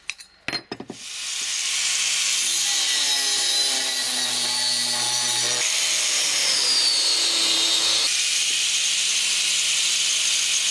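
A few sharp knocks, then an angle grinder starts about a second in and grinds into the steel of an old hoe blade, giving a loud, steady grinding hiss. The motor's whine dips and shifts in pitch as the disc is pressed into the metal.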